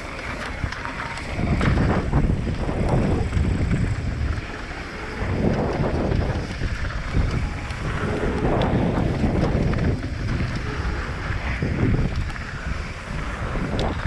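Wind buffeting the microphone in surges on a mountain-bike ride down a trail, with low rumble and scattered sharp rattles and clicks.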